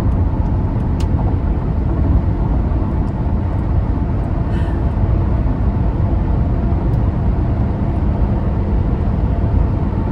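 Steady road noise of a moving vehicle: a continuous low rumble with no change in pace.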